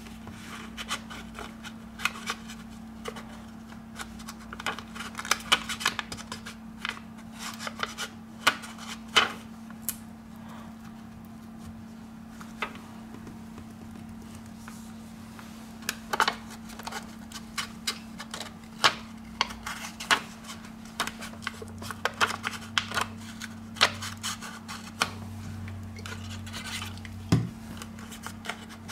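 Small hand tools clicking, tapping and scraping on a Samsung Galaxy Note 4's casing and internal parts as it is taken apart, in irregular sharp clicks with quieter gaps between them, over a steady low hum.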